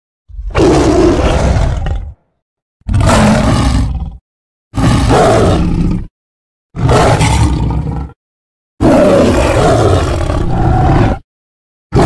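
Sound-effect roars of a saber-toothed cat (Smilodon), repeated as separate loud roars about one and a half to two seconds each, with dead silence between them. Five roars in all, the fifth the longest, and a sixth begins right at the end.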